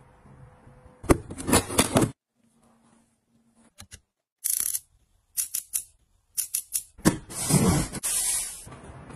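A string of short clicks and crisp handling noises from plastic gadgets, separated by silent gaps. Near the end comes a longer, louder crinkling of a thin plastic bag being pulled off a stack of plastic stools.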